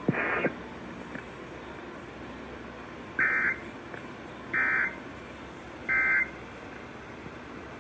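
Emergency Alert System end-of-message tones on NOAA Weather Radio: three short, identical bursts of screeching digital data about 1.3 seconds apart, marking the end of the alert message, over steady radio hiss. A brief loud burst comes right at the start.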